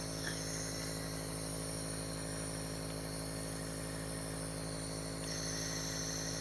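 Steady buzzing hum of a small electric motor, running evenly without change.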